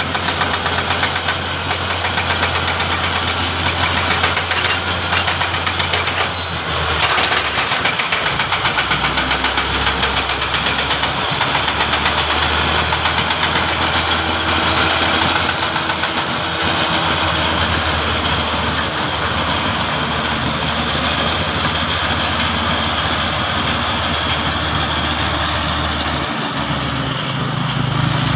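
Crawler bulldozer's diesel engine running under load as it pushes soil, with a fast, even pulsing beat and its note shifting a few times.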